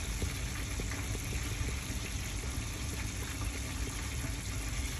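Buffalo sauce of butter, hot sauce, soy sauce and honey simmering in a pan: a steady bubbling hiss with small irregular pops.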